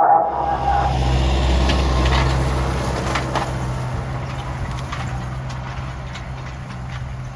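Tractor engine running with a steady low hum, growing gradually fainter as it moves away, with light rattles and clicks over it.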